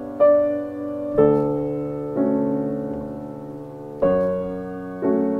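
Background piano music: slow, gentle chords struck about once a second, each left to ring and fade.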